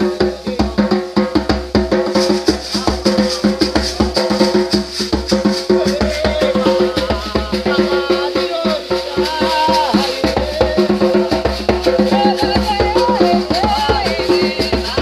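Music with a steady beat: drums and a shaker under a sustained chord and a wavering melody line.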